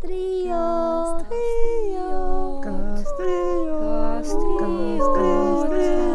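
Several voices singing a slow a cappella melody in harmony, holding long notes that step from pitch to pitch.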